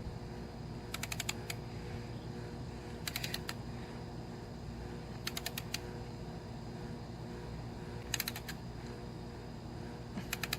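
Ratchet wrench, likely the torque wrench, clicking in short runs of four or five quick clicks about every two seconds, as each swing is ratcheted back while the intake manifold bolts are tightened toward their final torque.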